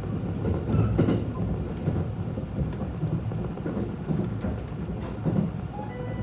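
Cabin noise inside a 683 series electric express train's car while running: a steady low rumble of wheels on rail, with a few light clicks.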